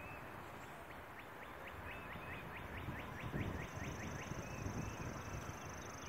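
Northern mockingbird singing: a few short whistled notes, then a fast run of repeated notes, about seven a second, for roughly two seconds. A long, thin, high trill starts in the second half.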